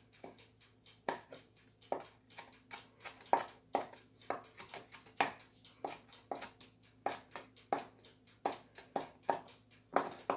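Chef's knife chopping a habanero pepper finely on a wooden cutting board, with a steady run of knocks of the blade on the wood, about three a second.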